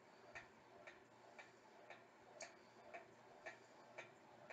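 Faint, regular ticking, about two ticks a second.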